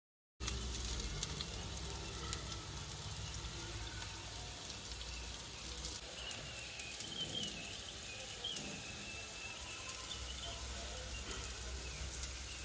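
Chicken pieces with curry leaves sizzling and crackling in hot oil in a nonstick frying pan during a dry roast. The sizzle cuts in suddenly about half a second in and then stays steady.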